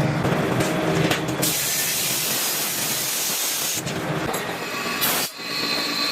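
Factory machinery running, with a long hiss of air or spray starting about a second and a half in and lasting about two seconds, and shorter hisses after it.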